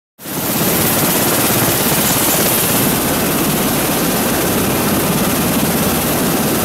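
MV-22 Osprey tiltrotors running, their turboshaft engines and proprotors making a steady, loud noise that cuts in suddenly just after the start.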